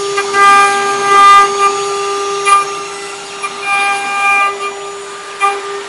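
High-speed spindle of a small CNC engraving machine running with a steady whine while the cutter engraves copper. A higher, ringing whine swells and fades several times as the tool bites into the metal.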